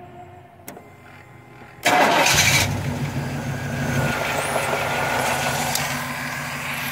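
GMC Yukon's V8 engine started after an oil change: about two seconds in a brief burst of cranking as it fires, then it settles into a steady idle on the fresh oil.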